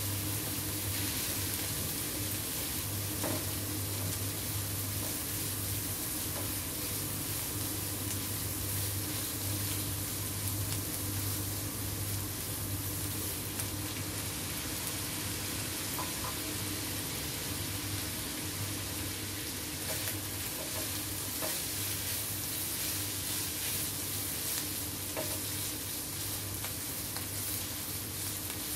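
Pork strips and shrimp sizzling as they stir-fry in a nonstick wok, turned with a plastic spatula that scrapes and now and then knocks the pan. A low hum runs underneath.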